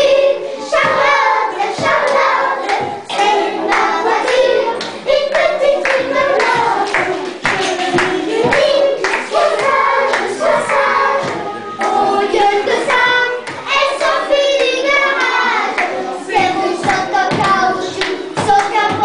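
A group of women singing together, with hand claps along with the song.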